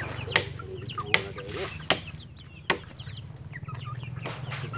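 A flock of young chickens peeping and clucking. Four sharp knocks, evenly spaced, in the first three seconds stand out louder than the birds.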